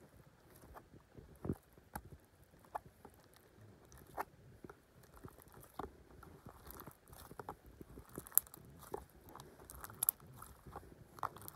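Slime being squeezed and stretched by hand, making irregular small wet clicks and pops.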